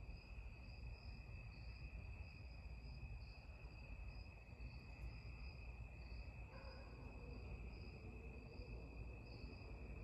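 52-inch Harbor Breeze Lakeside II ceiling fan running quietly at low speed, the only speed it will run on with its bad capacitor, giving a low hum. A steady, slightly wavering high-pitched trill sits over it.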